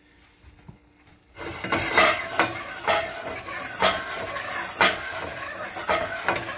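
Red-wine reduction boiling hard in a stainless steel sauté pan: a steady bubbling sizzle that starts about a second and a half in, with sharp metallic clinks every second or so. The pan is on high heat to reduce the sauce.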